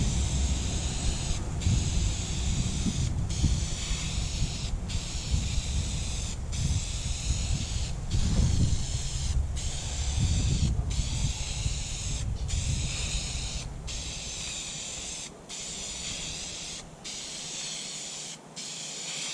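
Aerosol can of Duplicolor vinyl and fabric spray hissing in long bursts, the nozzle let off for a brief moment about every second.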